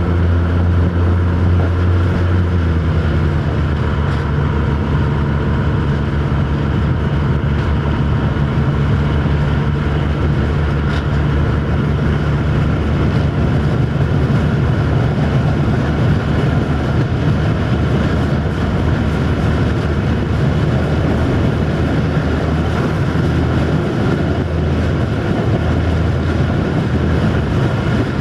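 Old Malaxa diesel railcar running at speed: a steady diesel engine note, heard from an open side window over a constant rush of air and track noise. The engine note drops slightly about two and a half seconds in and then holds steady.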